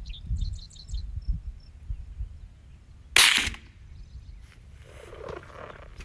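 A single .22 rifle shot about three seconds in: one sharp crack, fired into a steel toolbox.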